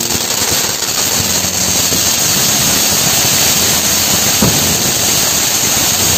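Ground fountain firework (flower pot) spraying sparks with a loud, steady hiss, and a brief pop about four and a half seconds in.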